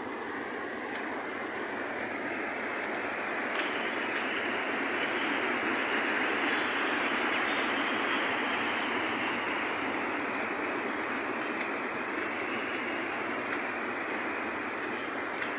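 Muddy storm runoff rushing down a hillside gully after intense rain: a steady, even roar of water. It grows louder about four seconds in and eases slightly near the end.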